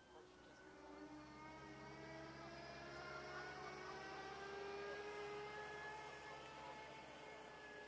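Jet airliner engines whining in the distance, several engine tones drifting slowly in pitch over a low hum. The sound swells to a peak around the middle and eases off near the end.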